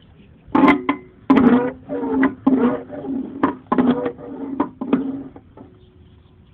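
Car fuel filler flap hinge squeaking and clicking in a string of short strokes as the flap is worked open and shut, its hinge freshly sprayed with WD-40.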